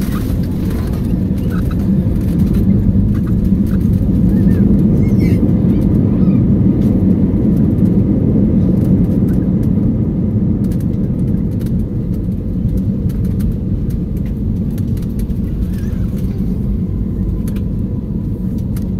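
Airbus A321neo landing rollout heard from the cabin: a loud, steady low rumble of the engines and the wheels on the runway, building a couple of seconds in and then easing off as the jet slows.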